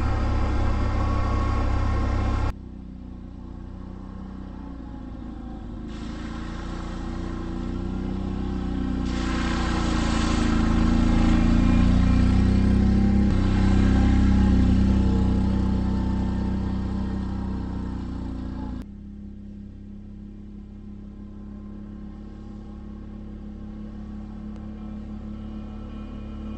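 Can-Am Outlander ATV engine running on a dirt trail. It is heard close at first, then growing louder and fading again as it passes, and finally quieter and farther off.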